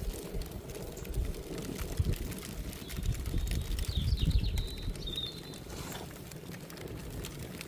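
Wind buffeting the microphone in gusts that ease off about two thirds of the way through. Over it, a bird chirps a few times in the middle, with faint scattered clicks throughout.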